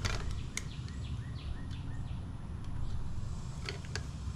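A few sharp metal clicks as needle-nose pliers work the brake shoes and springs of a Suzuki FA50 moped's rear drum brake, over a steady low hum, with short falling bird chirps in the background.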